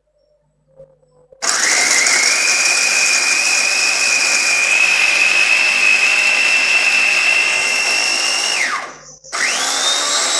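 Small electric mini chopper (Sunny multi food processor) grinding green chillies. The motor whines up to speed about a second and a half in, runs steadily for about seven seconds, then winds down. It is pressed on again for a second run near the end.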